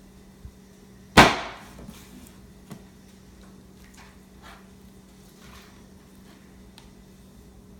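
A single loud chop about a second in as a scimitar butcher knife cuts through chicken, followed by a few faint knocks and scrapes of the blade. A steady low hum runs underneath.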